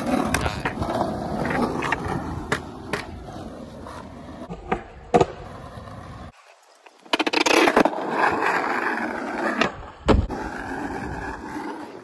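Skateboard wheels rolling over rough asphalt with a steady grinding rumble, broken by several sharp clacks of the board against the pavement. The rolling drops out briefly just past the middle, then comes back loud.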